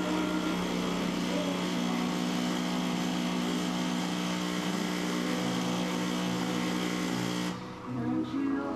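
Breville Dual Boiler espresso machine's vibratory pump running with a steady buzz while pulling an espresso shot, then cutting off sharply about seven and a half seconds in as the shot ends.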